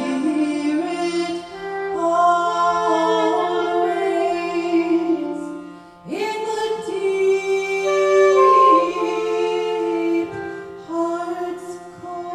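A woman singing into a microphone, holding long notes that slide from pitch to pitch over a low steady drone. She pauses briefly about halfway through, then swoops up into a new phrase.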